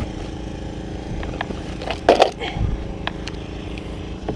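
A motor's steady drone runs throughout, with clicks and rustling as a fishing rod and spinning reel are pulled out of a canvas backpack and handled. A short, louder noise comes about two seconds in.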